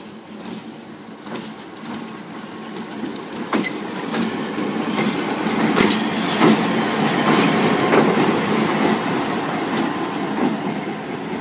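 Victorian Railways Y-class diesel-electric shunting locomotive passing close at low speed, its diesel engine running with the wheels clicking over rail joints. The sound grows to its loudest about six to eight seconds in as the locomotive goes by, then eases off.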